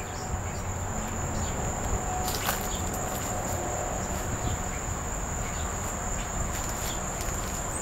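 Crickets trilling, a single steady high-pitched note that never breaks, over a rustling background with a few light clicks.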